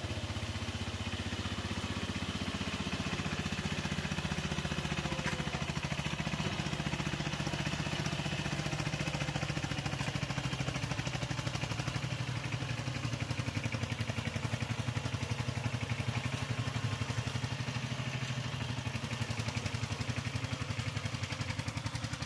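The single-cylinder diesel engine of a two-wheel power tiller runs steadily with a fast, even chug, working under load as the tiller churns through a flooded rice paddy.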